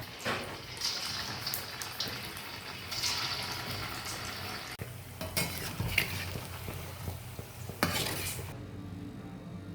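Tahu aci (tofu stuffed with tapioca batter) sizzling as it fries in hot oil, with a utensil clicking and scraping against the pan several times. The sizzle cuts off suddenly near the end, leaving a low steady hum.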